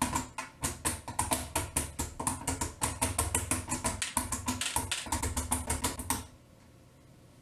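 Fast typing on a mechanical keyboard: a dense, uneven run of key clicks, about eight a second, that stops suddenly about six seconds in.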